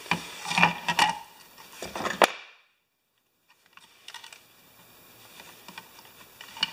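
Sharp clicks and knocks of small hand tools and a plastic lamp frame handled on a wooden workbench, then faint ticks of side cutters trimming thin wire to length.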